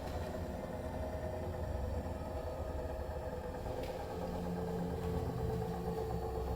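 Bosch Serie 4 EcoSilence washing machine on its spin cycle: a steady low hum with a whine held on a few fixed pitches, a lower tone joining about four seconds in. It is the drum/spindle noise that the owner finds abnormally loud for a new machine and that Bosch called normal.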